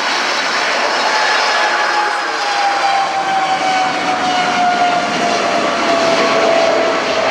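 Airbus A310 airliner on final approach with its landing gear down, its jet engines running with a loud steady rush and a whine that slowly falls in pitch as it passes.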